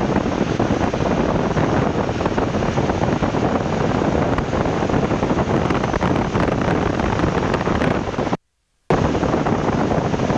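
Loud, steady wind rush buffeting the microphone in the open cockpit of a Boeing PT-17 Stearman biplane in flight, with its Continental R-670 radial engine running underneath. The sound cuts out completely for about half a second near the end.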